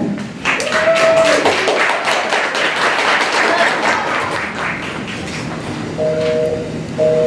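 Audience applauding, fading away over about five seconds. Near the end, a telephone busy signal starts: a two-tone beep pulsing about once a second, the line that is always busy.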